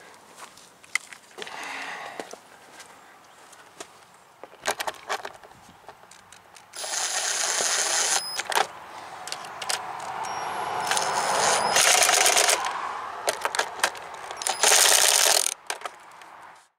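Cordless power driver spinning a socket to run in the engine cover's bolts, in three runs: a couple of seconds long about seven seconds in, a longer one about ten seconds in, and a short one near the end. Before the runs come light metallic clicks and clinks of the tool and small parts being handled.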